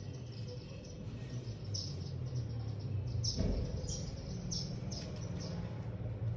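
Small birds chirping: short, high chirps repeated every half second or so over a steady low hum, with a dull thump about halfway through.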